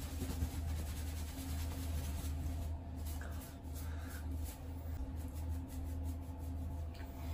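Faint rustling of a towel rubbing wet hair, then fingers tousling the hair, over a steady low hum.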